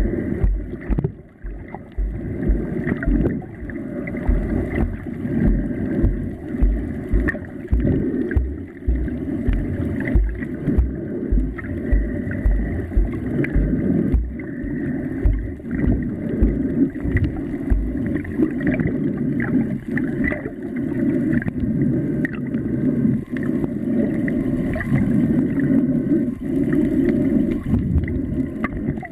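Muffled underwater water noise with gurgling, heard from below the surface. A run of evenly spaced deep thumps, two to three a second, stops about two-thirds of the way through.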